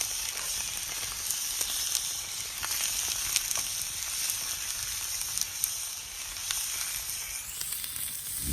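Wood campfire crackling: a steady hiss with scattered sharp pops and snaps.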